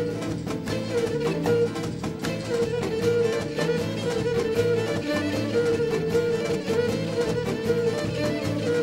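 Cretan folk dance music from a traditional band: a bowed string instrument carries the melody over strummed, plucked lute accompaniment, with a steady dance beat.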